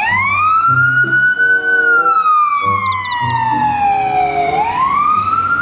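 Ambulance siren wailing: one slow rise in pitch, a long fall, and a rise again near the end, over background music.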